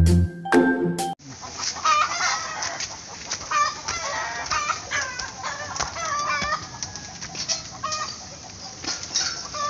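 A musical jingle cuts off about a second in. Then chickens cluck over and over in short, bending calls.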